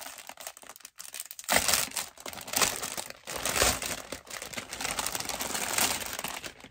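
Clear plastic bag crinkling and rustling as a shirt is worked out of it, louder from about a second and a half in.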